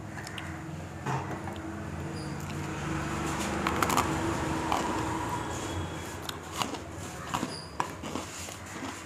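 Eating and handling sounds: a waffle piece being picked up from a paper plate and bitten into, heard as a scatter of short clicks that are thickest about four seconds in. Under them runs a steady low hum of room noise.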